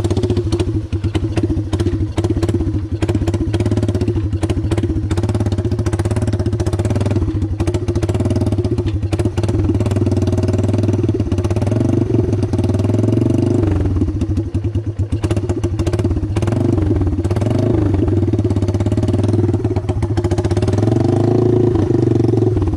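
Yamaha TimberWolf ATV's single-cylinder four-stroke engine running steadily with small rises and falls in engine speed. It has a loud exhaust from a rusting muffler, which the owner says makes it sound like a Harley.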